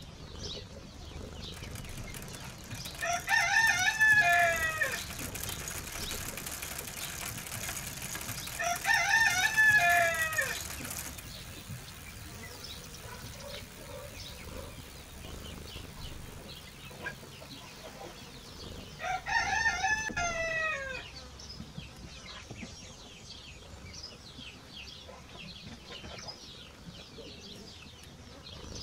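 A rooster crowing three times, each crow about two seconds long and the loudest sound, with faint chirping in between.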